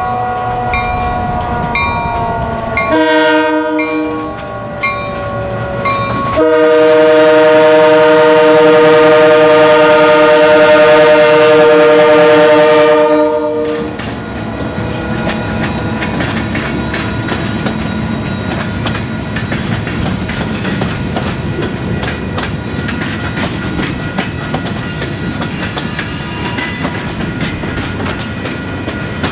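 Union Pacific 1158 locomotive passing close by. Its multi-chime horn sounds with a falling pitch while a bell rings about once a second, then gives a short blast and a long blast of about seven seconds, the loudest part: the close of a grade-crossing horn signal. After the horn stops, the train's wheels click and rumble over the rail joints as the cars roll by.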